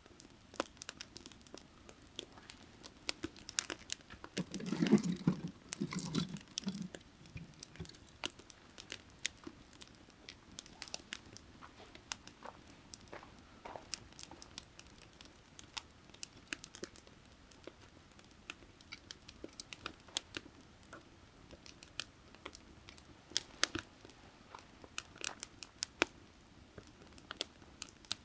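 Firewood burning with irregular sharp crackles and pops, and a louder, lower rustling flare-up about five seconds in. A faint steady creek murmur lies underneath.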